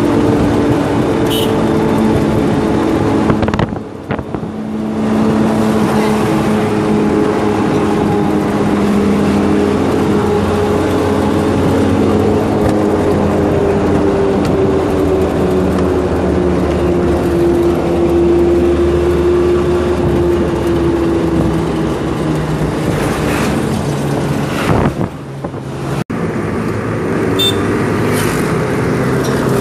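Engine and road noise heard from inside an open-sided 4x4 jeep driving on a paved road: a steady hum whose pitch drifts slowly as the speed changes, with two brief drops in loudness, about four seconds in and near the end.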